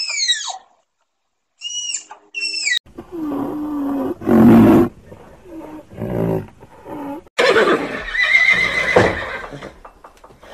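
Animal calls: a few short, high, falling chirps, then from about three seconds in a series of deeper, louder calls, the loudest near the middle and another long one near the end.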